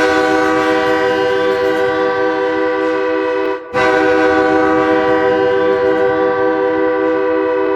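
Ice hockey goal horn for Turkey, signalling a goal: a loud, steady horn with several tones sounding together, in two long blasts with a short break about three and a half seconds in.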